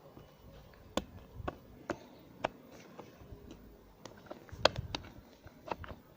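Irregular sharp clicks and knocks of small metal parts being handled: an M8 Zebedee spring channel nut and a short piece of Uni-strut channel being fitted together.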